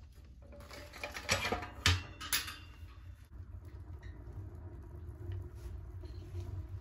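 Heavy steel door of a Camp Chef cylinder wood stove swung shut and latched, with a few sharp metal clanks between about one and two and a half seconds in. After that, the freshly lit kindling fire inside crackles faintly over a steady low rumble as the stove draws.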